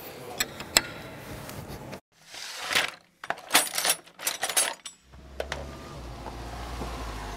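A couple of sharp clicks, then a short logo sound effect of bright metallic clinks and swishes with silence between them. From about five seconds in, a car engine idles with a steady low hum.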